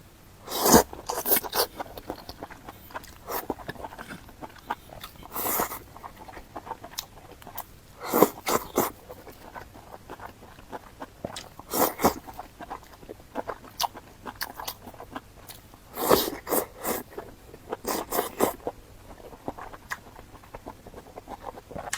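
Close-miked eating: bites and chewing, with crunchy, wet mouth sounds coming in short clusters every few seconds.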